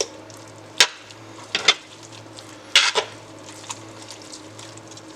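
Metal utensils clinking and scraping against a pan as a smoked pot roast is shredded in its juices. About six sharp clinks come in the first three seconds, over a low steady hum.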